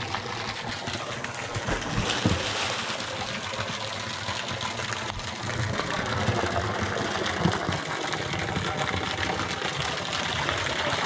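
Steady rush of moving water in a swimming pool.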